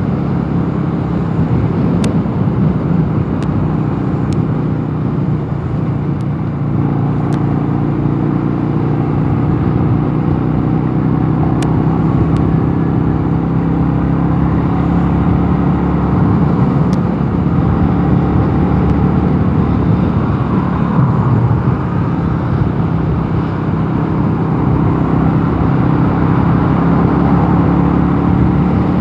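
Mondial Nevada 250 motorcycle engine running at a steady cruising speed under load, its note holding nearly constant pitch over a steady rush of road noise.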